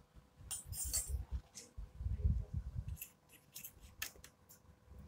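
Small metal utensil scraping and clicking against a miniature steel bowl while stirring flour for gulab jamun dough, in short irregular strokes with soft knocks from the bowl moving on the floor.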